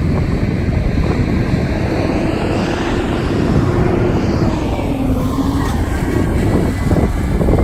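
Strong mountain wind buffeting the microphone: a loud, continuous rumbling rush.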